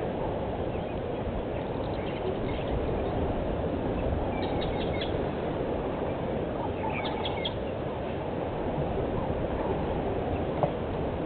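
Wild birds chirping in two short bursts, about four and a half and seven seconds in, over a steady low outdoor rush of noise; a single click near the end.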